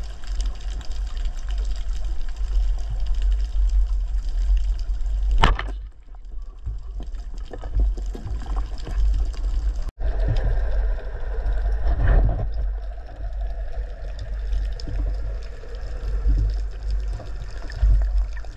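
Underwater water noise picked up through an action camera's housing: a steady low rumble with scattered crackles, and one sharp snap about five and a half seconds in.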